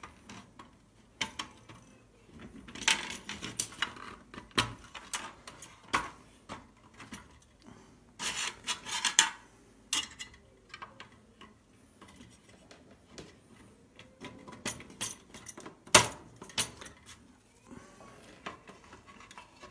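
A thin metal tool clicking and clinking against the sheet-metal case and lid of a Primus PT1 petrol stove while a spare gasket is fitted into the lid. The taps are scattered and irregular, with louder clusters of clinks and the sharpest knock about sixteen seconds in.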